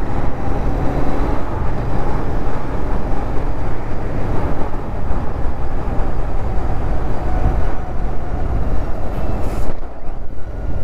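Royal Enfield Interceptor 650's parallel-twin engine running steadily while riding, with a dense rushing noise over it.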